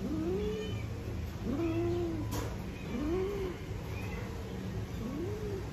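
Cat in heat yowling during mating, a string of four short low calls that each rise and fall in pitch, about one every second and a half.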